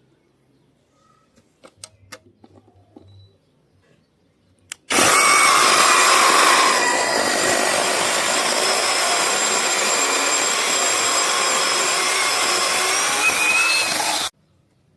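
Battery-powered 6-inch mini chainsaw with a brushless motor, cutting a branch. A few light knocks come first; about five seconds in the saw starts suddenly with a high whine, runs for about nine seconds and stops abruptly.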